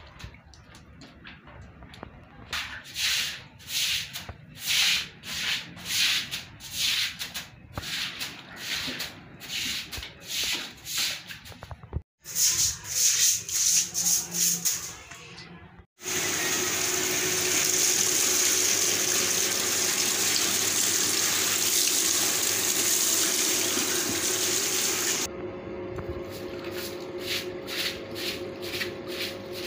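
Stick broom sweeping a wet concrete floor, brisk scratchy strokes about two a second. In the middle, a steady rush of running water for about nine seconds, then the sweeping strokes start again.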